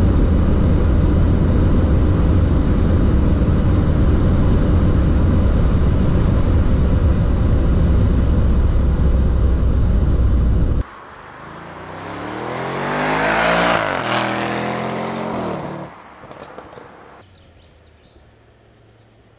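Audi S8 Plus's twin-turbo V8 car at high speed: a steady, loud drone of engine, wind and tyres. About eleven seconds in it gives way abruptly to the car approaching and passing by, its engine note rising in pitch and loudness, then dropping and fading away.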